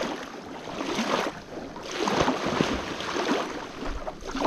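Lake water splashing and sloshing around a person wading in, coming in uneven surges.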